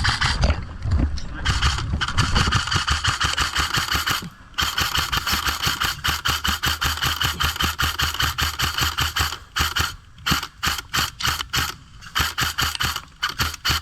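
Airsoft electric rifle firing on full auto: a fast, buzzing stream of shots. It fires one long burst of about five seconds, then a string of shorter bursts with pauses between them.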